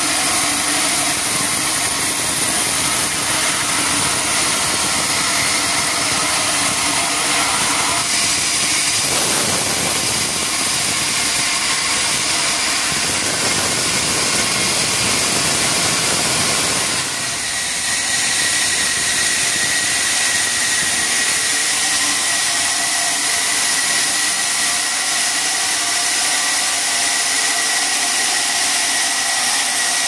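Sawmill machinery running loudly and steadily, with a high-pitched whine over the noise. The sound shifts about eight seconds in, and again just past halfway, where it dips briefly before a steady higher tone sets in.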